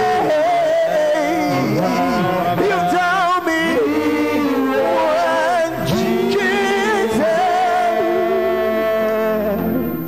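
A slow worship song sung with long held notes over steady musical accompaniment.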